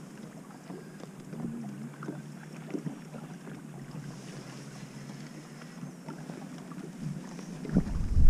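Wind and water sounds on an open fishing boat, with wind noise on the microphone and a few faint ticks. A louder low rumble comes in near the end.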